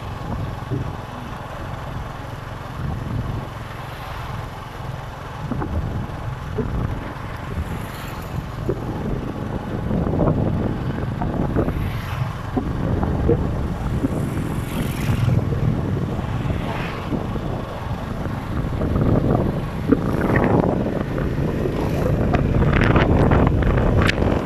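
Wind buffeting the microphone over the low rumble of a moving vehicle's engine and road noise, in uneven gusts. It grows louder in the second half, loudest near the end.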